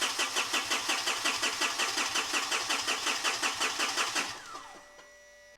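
Mitsubishi Fuso FG's 4P10 four-cylinder diesel cranking on the starter in an even, rapid rhythm without firing: a no-start. The cranking stops a little past four seconds in, and the starter winds down in a falling whine.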